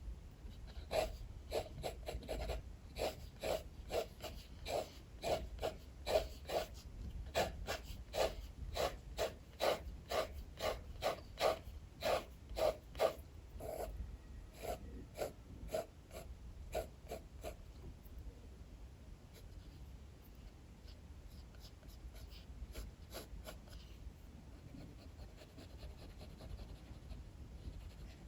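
Sketching strokes scratching on paper in a quick, even rhythm of about two strokes a second, turning softer and sparser about two-thirds of the way through. A steady low rumble of wind runs underneath.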